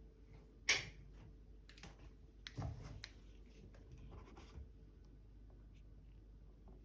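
Scattered handling noise: a sharp rustle about a second in, then a cluster of scratchy rustles and light knocks, as sneakers and their packaging are handled.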